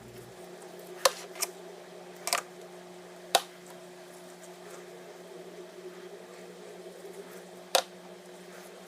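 A steady low hum with five sharp clicks and taps, as the parts of the K&N pod filters are handled and set down during the install.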